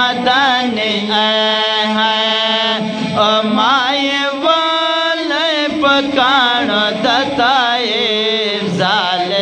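Male voices chanting a Pashto naat through a microphone, without instruments: long, wavering, ornamented sung notes over a steady low held note.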